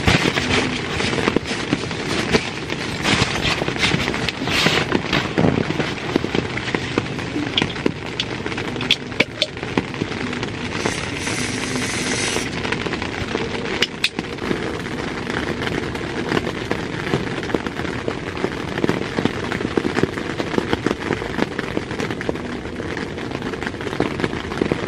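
Rain pattering densely on a nylon tent fly, heard from inside the tent. Crinkling of an inflatable sleeping pad being pressed and sat on comes through in bursts over the first few seconds.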